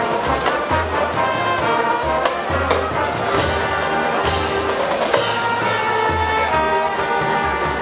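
Marching band playing: brass sounding held chords over a low repeating bass line, with percussion.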